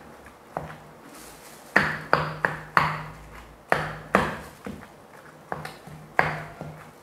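Granite pestle pounding in a granite mortar: about a dozen irregular knocks, each ringing briefly, as boiled herbs, chilies and tilapia flesh are pounded into curry paste.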